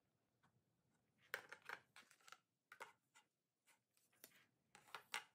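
Faint clicks and knocks of wooden TV-stand parts being handled and set down: a small dowelled end block and a long wooden rail. The knocks come irregularly, the loudest about a second and a half in and again near the end.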